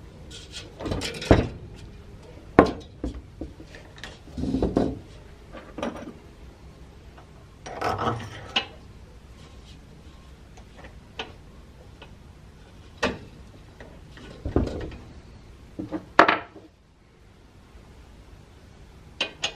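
Metal parts of a cryocooler cold head handled and set down on a wooden workbench: scattered clinks, knocks and short scrapes, with the loudest knocks a little over a second in, about two and a half seconds in, and about sixteen seconds in.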